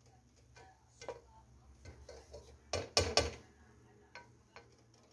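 Metal spoon stirring cooked rice in a metal pot, scraping and clinking against the pot now and then, with a burst of several louder knocks about three seconds in.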